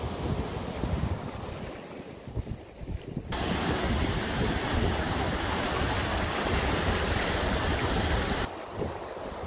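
Surf breaking on a sandy beach, with wind buffeting the microphone. A little over three seconds in, the sound switches abruptly to a louder, brighter, steady rushing hiss of water, which cuts back to the lower surf rumble about a second before the end.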